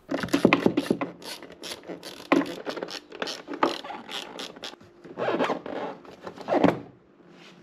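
Ratchet wrench clicking in quick strokes as the two bolts holding a Can-Am Spyder F3's rider seat are undone, in two spells with a lull about four seconds in.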